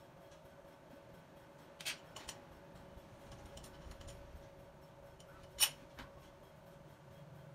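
Sharp metal clicks from the hand-worked handles and fittings of a crankshaft grinding machine: a pair about two seconds in, and a loud single click about five and a half seconds in followed by a lighter one. A faint steady hum runs underneath.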